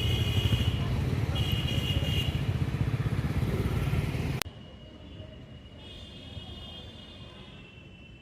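An engine running with a rapid low throb, under a high electronic alarm tone sounding in pulses of about a second. The engine sound cuts off abruptly about four seconds in, leaving the alarm tone fainter.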